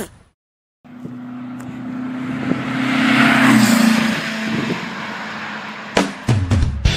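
After a brief silence, a vehicle engine draws near and passes by. Its steady hum grows louder to a peak about three and a half seconds in, and its pitch drops slightly as it goes past before it eases off. A few sharp clicks follow, and rock music with guitar starts near the end.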